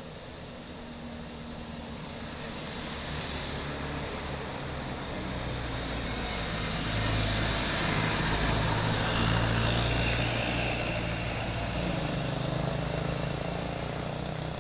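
Large diesel bus engine running as the bus approaches, growing steadily louder over the first seven seconds or so and staying loud and close until the sound cuts off abruptly at the end.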